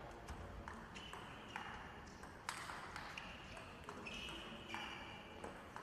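Table tennis rally: the ball clicks off the rackets and the table in a quick, uneven back-and-forth, about a dozen sharp hits, each with a brief ring. The hits are faint over low hall background noise.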